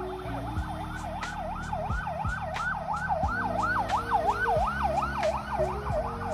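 Siren in a fast yelp, its pitch sweeping up and down about three times a second, from a police escort vehicle.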